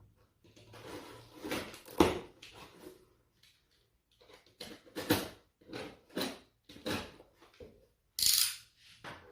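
Cardboard shipping box being opened and its packaging handled: scattered clicks, knocks and rustles, with a sharp knock about two seconds in and a longer rustle near the end.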